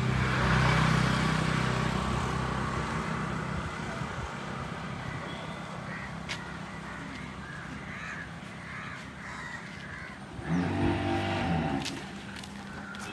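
A motor vehicle passes on the road, loud at first and fading over a few seconds, followed by several short crow caws. Near the end comes a louder, steady pitched sound lasting about a second and a half.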